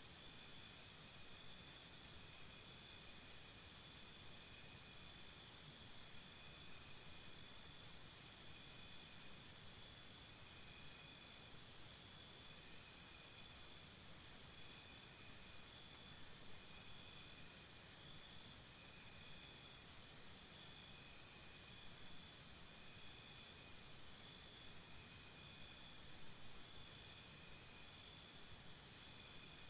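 Night crickets chirping: rapid high chirps in runs of two to three seconds, repeating about every seven seconds, over a steadier high insect trill.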